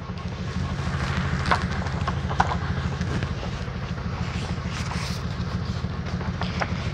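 Airway-clearance vest's pulse generator running for a cystic fibrosis chest-physiotherapy treatment: a steady, rapidly pulsing low hum. Paper book pages being flipped make a few short rustles and clicks over it.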